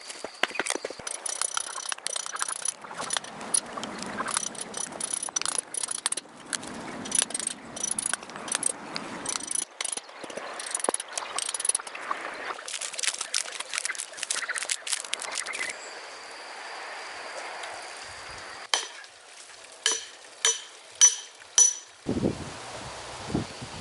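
Hand tools working wood: dense scraping and tapping for most of the time. It turns quieter, with about six sharp, ringing strikes near the end.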